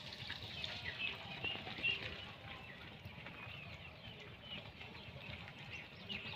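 Small birds chirping, many short high chirps scattered irregularly over a faint low rumble.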